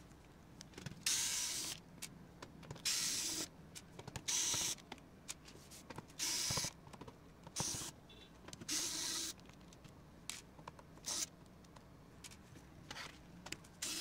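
Small cordless electric screwdriver whirring in short bursts of under a second each, about nine times, as it backs screws out of a laptop's inner panel. Light clicks and taps of screws and fingers on the plastic come in between the bursts.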